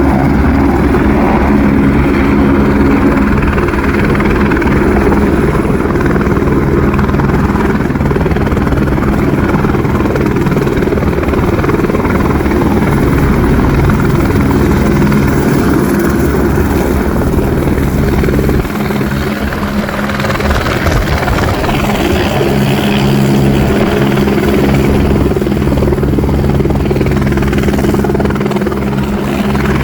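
Airbus AS350 (H125) single-turbine helicopter with its three-blade main rotor running steadily during its landing. The low rotor tones ease off briefly about two-thirds of the way through, then come back.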